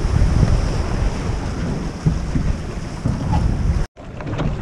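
Wind buffeting the microphone and water rushing along the hull of a small boat running at speed. It cuts off suddenly near the end, giving way to a much quieter sound of the boat stopped on the water.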